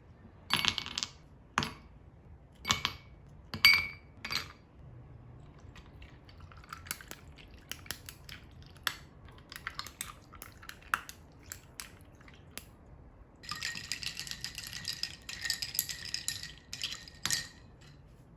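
Ceramic or glass kitchenware clinking and being set down, several sharp ringing knocks in the first few seconds. Scattered small clicks and taps follow, then about three and a half seconds of dense rattling clatter near the end.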